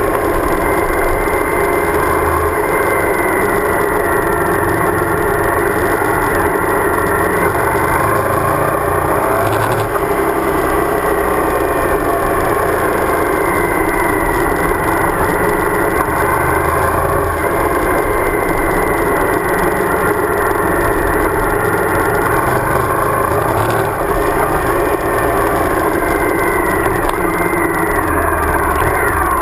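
Suzuki DL1000 V-Strom's V-twin engine running steadily at riding speed on a gravel road, over a low rumble of wind and tyre noise on the bike-mounted microphone. The engine note falls near the end as the bike slows.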